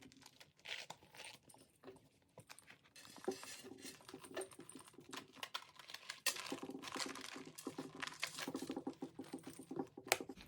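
A handbag and its strap being handled and adjusted: light rustling with many small clicks and taps, busier and louder from about the middle on.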